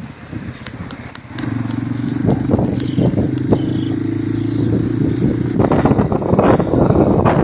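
Small street motorcycle's engine running at low speed with a steady drone, heard from the rider's seat. About five and a half seconds in, wind noise on the microphone comes in.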